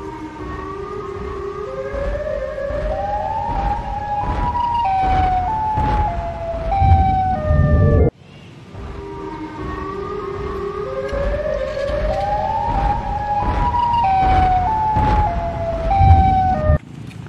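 Siren Head monster sound effect: a siren wail that climbs in pitch in steps and then drops back in jumps, with deep thuds underneath. The same clip plays twice, breaking off abruptly about eight seconds in and again near the end.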